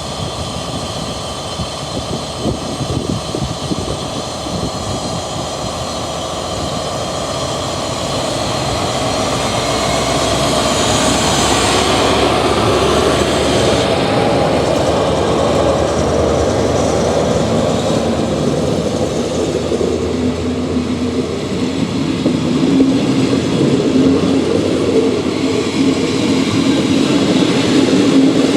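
Diesel-hauled passenger train running on the rails, its noise building steadily, with steady high whining tones over it: the marked brake squeal of the train as it begins to brake.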